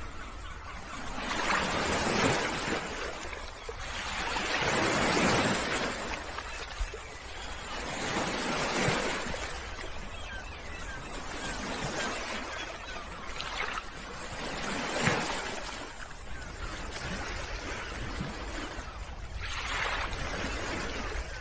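Sea waves washing in, a noisy surf that swells and falls away every few seconds.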